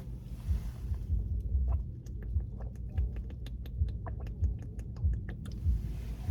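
A quick run of small, sharp clicks and crackles, about five a second, from a plastic water bottle being opened and drunk from. It stops shortly before the end, over a low, dull thumping that repeats about every half second.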